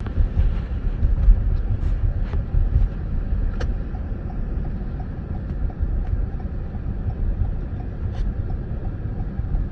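Car driving on a slushy, snowy road: steady low rumble of the engine and tyres, with a few faint ticks.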